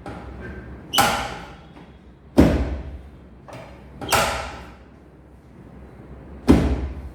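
Four sharp thuds a second or two apart, each dying away quickly, from chiropractic adjustment thrusts on a treatment table.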